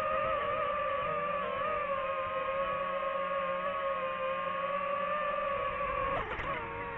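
Drone motors and propellers whining at a steady pitch that wavers slightly, then dropping in pitch near the end as they spool down.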